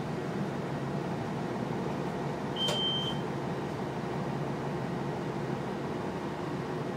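Cabin noise of a 2017 Nova Bus LFS diesel city bus, its Cummins L9 engine running under a steady low rumble and hiss. About two and a half seconds in there is a click and a short high beep.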